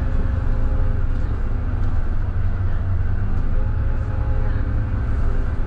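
Scania K320IB bus on the move: its diesel engine and road noise make a steady low drone with no change in pitch, heard from on board.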